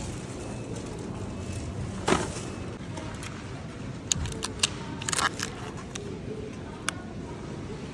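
Several short, light clicks and knocks of things being handled, most of them bunched together in the middle, over a steady low hum.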